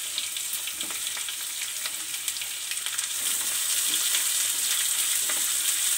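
Chopped onions sizzling as they fry in hot oil with a tempering of mustard seeds, curry leaves, chillies and garlic in a metal kadai, with a steady hiss full of small crackles and the scrape of a wooden spatula stirring them. The sizzle grows a little louder about halfway through.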